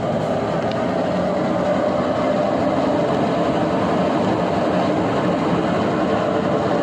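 Brastemp BWK11 washing machine running with a steady, continuous mechanical rumble.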